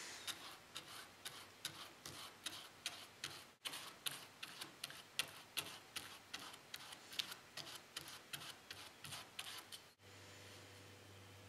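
A run of light, sharp ticks at about three a second, which stops near the end and leaves a faint low hum.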